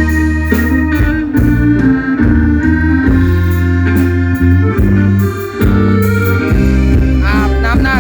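Live music from a small Thai procession-truck (rot hae) band: an electronic keyboard on an organ sound holds chords over a deep bass line and a steady drum beat. A wavering, bending melody line comes in near the end.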